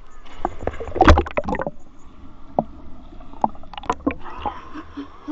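A person diving headfirst into the sea close to a camera at the waterline: a splash about a second in, the loudest moment, then water sloshing and bubbling around the camera as it dips under the surface.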